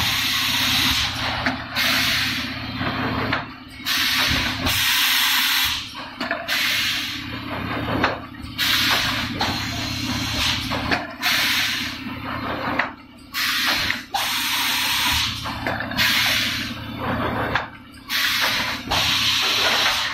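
Automatic 4-cavity PET bottle blowing machine running: loud hisses of compressed air as the moulds blow and exhaust, coming irregularly about once a second, over a steady low machine hum.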